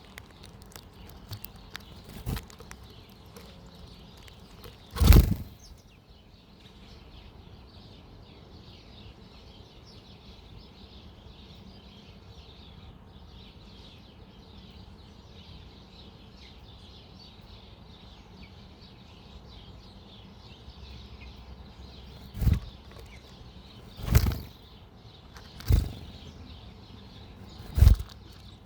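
Wild birds at a backyard feeder: faint scattered chirps over a soft outdoor hiss, broken by short loud flurries of wingbeats close by, once about five seconds in and four more in quick succession near the end.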